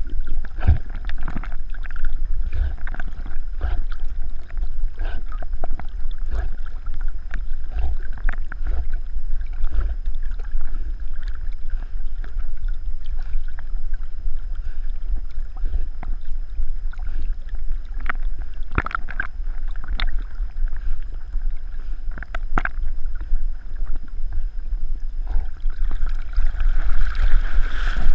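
A dog swimming with the camera strapped to its back: water sloshing and splashing around the camera over a steady low rumble, in irregular splashes from its paddling. The splashing grows louder near the end as the dog reaches the shallows.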